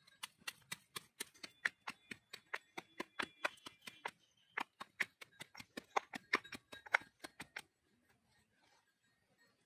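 Stone pestle pounding garlic cloves in a small stone mortar: quick, even knocks, about five a second, with a short pause about four seconds in, stopping near the end.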